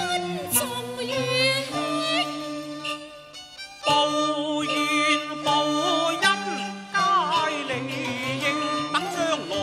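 Cantonese opera singing with heavy vibrato over a traditional accompaniment of bowed strings, with a sharp percussion knock about four seconds in.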